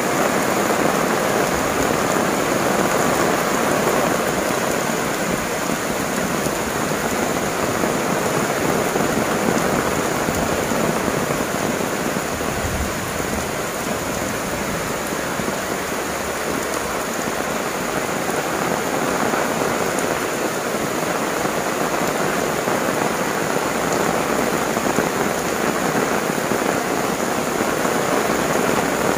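Heavy rain pouring steadily onto a tiled roof and banana leaves.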